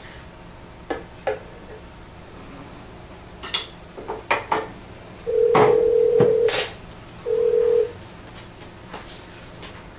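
Metal clicks and clunks from an antique Western Electric 3-slot payphone's lower front door being handled and taken off. Two steady telephone tones sound in the middle, the first about a second long with two clunks during it, the second shorter.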